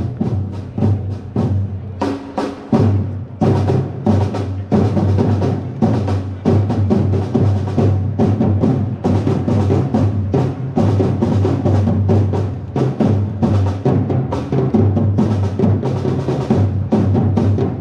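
Live drum corps playing for flag-wavers: drums beaten in a fast, continuous rhythm of many strokes, with held low tones sounding beneath.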